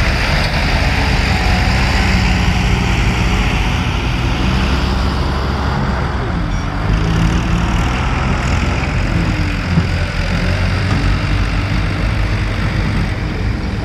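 Diesel tractor engine running steadily while its hydraulic lift tips a loaded trailer.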